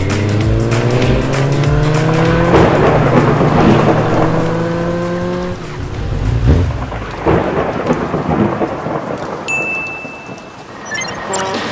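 Motorcycle engine sound effect accelerating, its pitch climbing in two stages over the first five seconds or so. It gives way to thunder rumbles and heavy rain.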